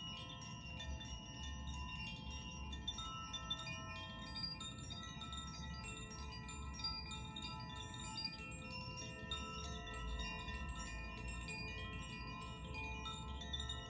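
Tuned hand-held wind chimes of the Koshi and Zaphir kind, played with a continuous tinkling as the clapper keeps striking the rods. Many overlapping bell-like tones ring on and blend into a shimmering wash.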